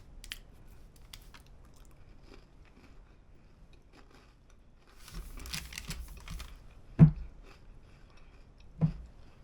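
A person biting into and chewing a homemade snickerdoodle cookie, with faint crunching throughout and a louder crunching stretch about five seconds in. Two short thumps come near seven and nine seconds.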